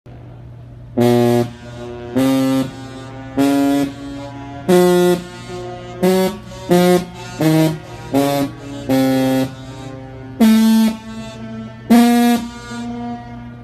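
Conn 20K sousaphone fitted with a Yamaha bell, played as about a dozen short, loud notes at changing pitches, each followed by a fainter echo.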